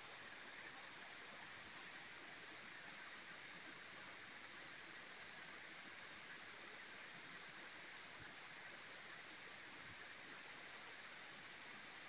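Waterfall falling down a rock face onto rocks and into a shallow pool: a steady, even hiss of water with no break.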